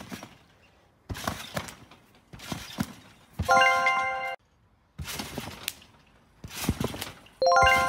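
Bouncing on a trampoline: thumps on the mat and rattling of the frame in short, abruptly cut clips. Twice, about three and a half seconds in and again near the end, a loud metallic ringing of several tones lasts about a second.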